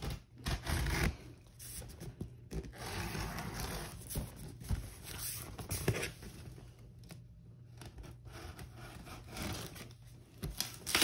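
Packing tape being torn and pulled off a cardboard shipping box, in irregular bursts of tearing and scraping, with the cardboard rubbing and knocking as the box is handled.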